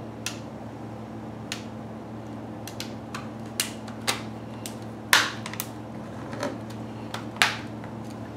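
Irregular plastic clicks and snaps as a tablet's plastic case and back cover are pressed and handled while test-fitting a replacement button; the two loudest snaps come about five and seven and a half seconds in. A low steady hum runs underneath.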